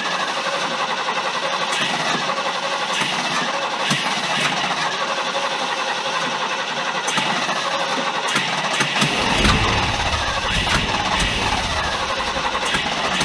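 1974 Ford F-350's 390 V8 running at a steady idle, with scattered ticks. The engine has just been brought back to life after sitting for years and is still untuned, awaiting an ignition tune-up and carburettor rebuild.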